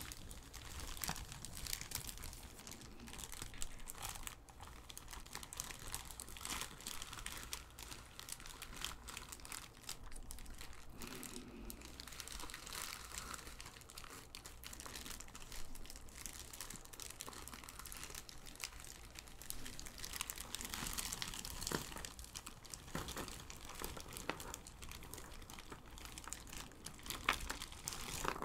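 Clear plastic bag full of jigsaw puzzle pieces crinkling as it is handled in a cardboard puzzle box, the pieces shifting inside it. Steady crinkles and small clicks, busiest about twenty seconds in and again near the end.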